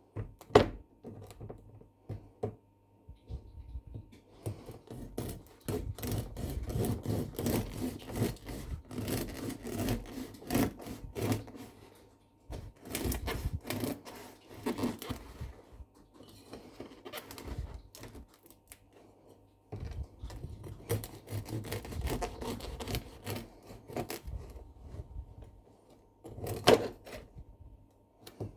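Kitchen handling clatter: a busy run of quick, irregular taps, knocks and scrapes in two long stretches, with a sharp knock about half a second in and another near the end.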